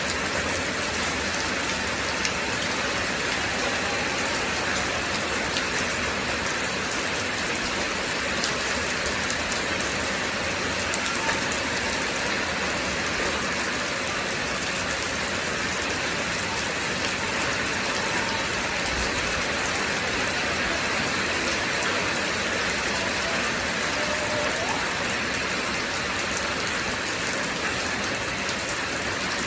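Steady rain falling on a surface, an even hiss with fine pattering drops.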